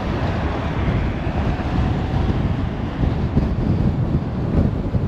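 Wind buffeting the microphone: a loud, steady low rumble and rush.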